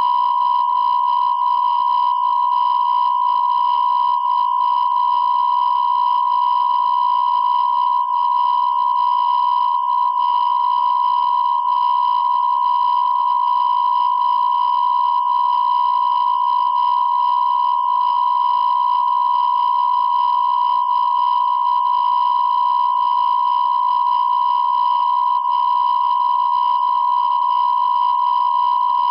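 A continuous electronic beep tone held at one steady pitch without a break, a plain test-tone-like sound with faint higher overtones.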